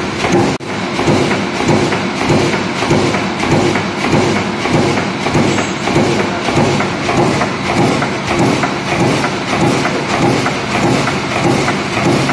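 160-ton CNC hydraulic punching press perforating thin metal sheet, its punch thudding in a steady, rapid rhythm of about two strokes a second. The sound briefly drops out about half a second in.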